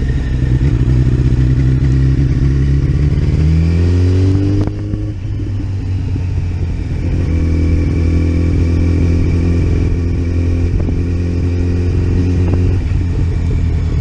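2008 Yamaha FZ1's inline-four engine running at low revs. It rises in pitch about three to four seconds in, dips briefly with a click, and then runs steady. At these revs the bike stuttered and misfired because a failing ignition coil was arcing to the engine.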